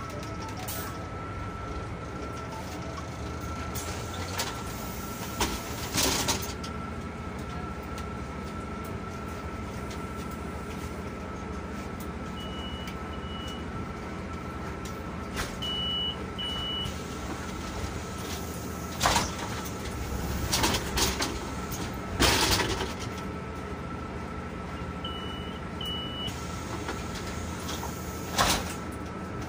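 Inside a Solaris Urbino 12 IV city bus standing at a stop: the engine idles steadily under a constant high whine, with several short hissing bursts and a few pairs of short high beeps.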